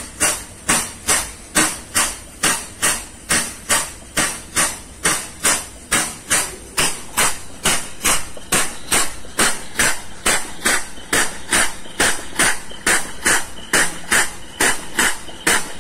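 Air-operated diaphragm pump running on compressed air, each stroke a sharp hiss-and-clack of exhaust, about three a second in a steady rhythm, as it sucks up leftover crude palm oil from a tanker's cargo tank.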